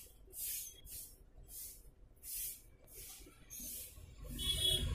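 Soldering iron on the solder joints of a monitor's power-supply circuit board, flux sizzling in a series of short hisses, about one every two-thirds of a second.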